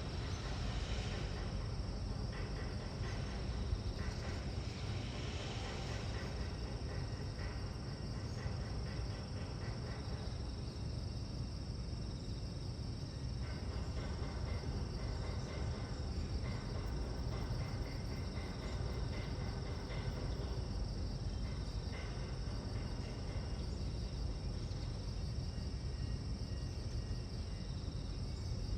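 Outdoor ambience of insects chirping steadily in fast, even trills over a constant low rumble.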